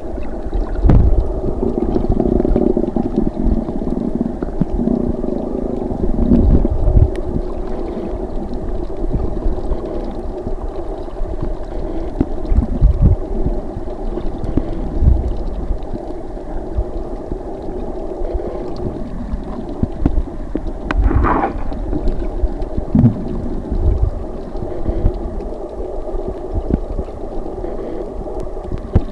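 Muffled underwater noise picked up through a camera's waterproof housing: a steady low hum and rumble of water, with occasional dull low thumps.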